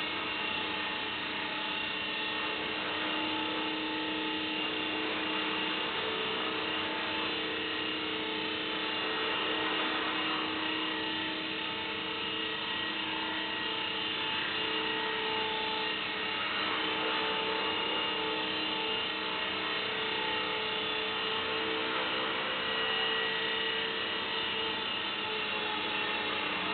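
Small electric radio-controlled helicopter in flight, its motor and spinning rotors giving a steady buzzing whine whose pitch wavers slightly as it manoeuvres.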